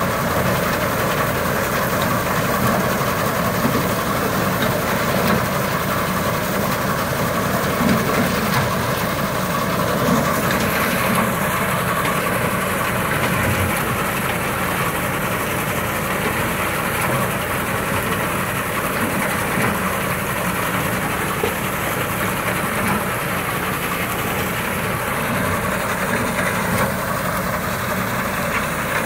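Tractor engine running steadily, driving a Yapel TDG 180 reaper-binder from its PTO, the machine's mechanism running with it as a dense, even mechanical noise.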